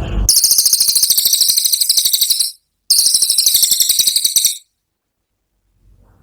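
Cililin songbird's 'tembakan' song: two very high, rapid buzzing trills of about two seconds each, separated by a brief pause.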